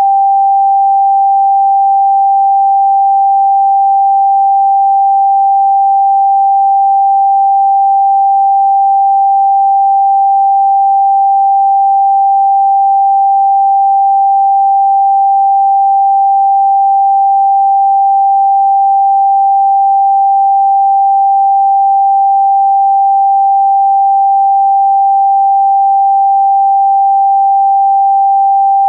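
Electronically generated pure sine tone, a Rife frequency, held steady at one pitch of about 800 Hz.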